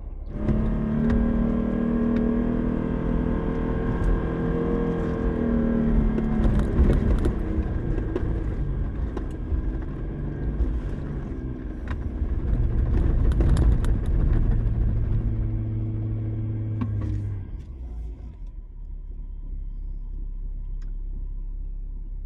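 Jeep engine revving hard under load on a run up a deep, soft sand hill, its pitch rising and falling with the throttle, with scattered clicks over it. About seventeen seconds in the revs drop away to a low idle as the climb falls short.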